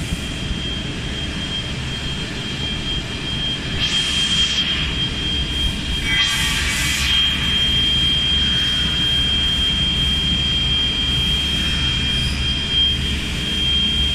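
HiCAS HC3300 CNC beam saw running: a steady high whine over a low hum, growing louder a few seconds in, with two short bursts of hiss about 4 and 6 seconds in.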